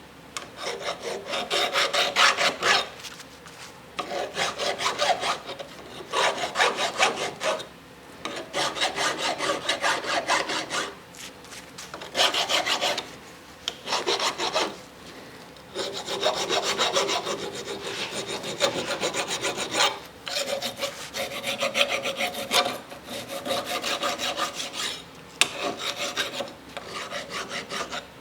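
Hand filing on metal: a rasping scrape in quick strokes, coming in bouts of a few seconds with short pauses between them.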